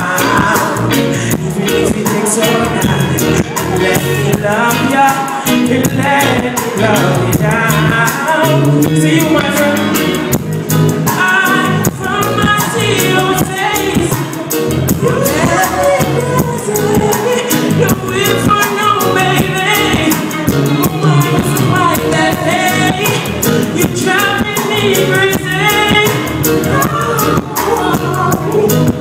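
Live band playing a song with drums and electric guitar, a male singer's vocals over it.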